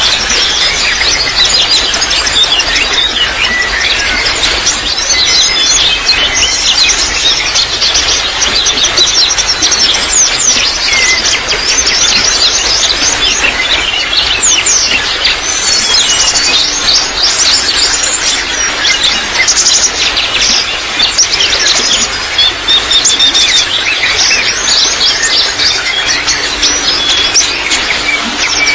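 A chorus of small songbirds chirping and trilling rapidly and continuously, over a steady hiss of trickling water.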